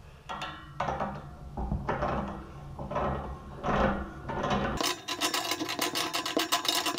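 Wrench working the union nut between a radiator's valve and the cast-iron radiator to loosen it: metal scraping and rasping, turning into a fast run of clicks about five seconds in.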